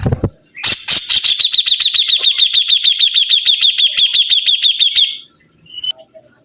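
Sibuntung songbird singing a fast, even trill of short downslurred whistled notes, about eight a second, for about four and a half seconds. A low thump comes at the very start.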